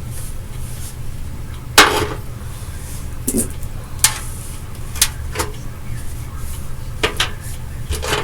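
Irregular sharp clicks and knocks of small hard objects being handled, about eight in all, the loudest about two seconds in, over a steady low hum.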